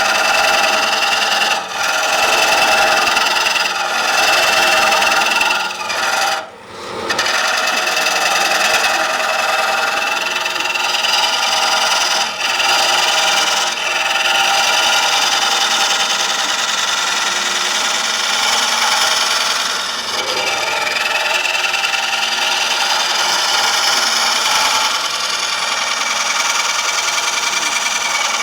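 A gouge cutting a spinning green-wood bowl blank on a wood lathe: a continuous rasping shear of the tool on wet wood over the lathe's hum. It breaks off briefly several times where the tool is lifted, longest about six seconds in.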